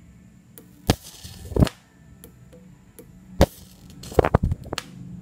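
High-voltage arc from a CRT flyback transformer driven by a ZVS circuit, jumping to a wire: sharp cracks with a brief sizzling hiss. There are two loud ones in the first two seconds, one near the middle, and a quick run of several near the end.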